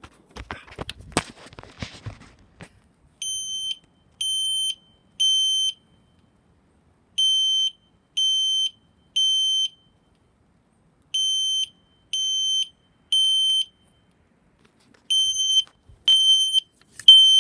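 System Sensor P2RL fire alarm horn sounding its 3 kHz tone in the temporal-three pattern: three short beeps, a pause, then again, four groups about four seconds apart. The horn is set to its lower volume. A brief rustle of handling comes before the first beeps.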